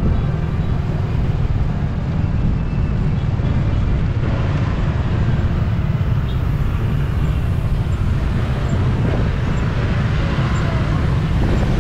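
Street traffic noise with a steady low rumble.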